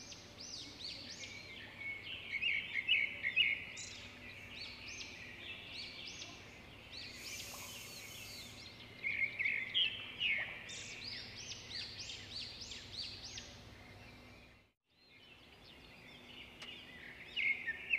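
Birds chirping and calling, many quick high-pitched calls overlapping in bursts over a faint steady low hum. The sound cuts out for a moment near the end, then the chirping resumes.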